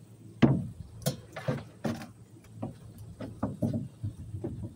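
Handling noise: a string of irregular knocks and scuffs as a phone is moved about and bumped, the loudest knock about half a second in.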